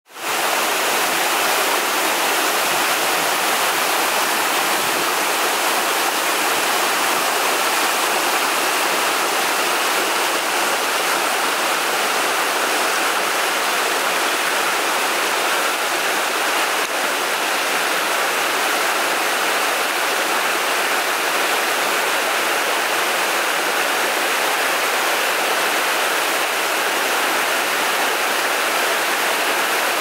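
A 76 m mountain waterfall cascading over rock in thin streams, a steady, even rush of falling and splashing water.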